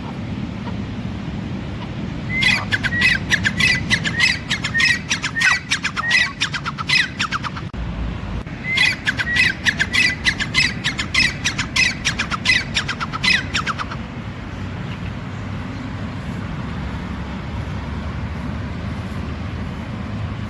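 Grey francolin calling: two bouts of rapid, harsh, repeated notes, each lasting about five seconds, with a short break between them. Steady low background noise continues afterwards.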